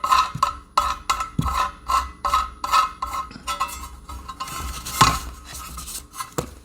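Background music with a steady percussive beat, about three beats a second, and one louder knock about five seconds in.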